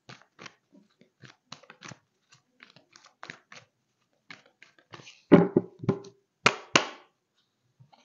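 A deck of angel oracle cards being shuffled by hand: a run of soft, irregular card-on-card slides and flicks, with a few louder slaps past the middle.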